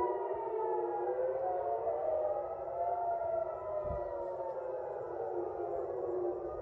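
Several civil-defence air-raid sirens wailing at once, their pitches slowly rising and falling out of step with one another, as a warning of an incoming missile attack. A brief low thump comes about four seconds in.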